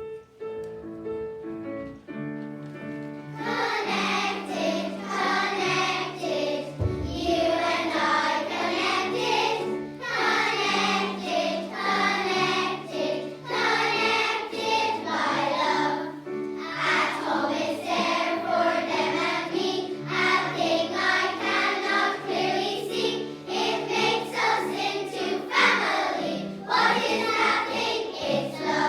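Children's choir of young girls singing a song over an instrumental backing. The accompaniment plays alone for the first three seconds or so, then the voices come in.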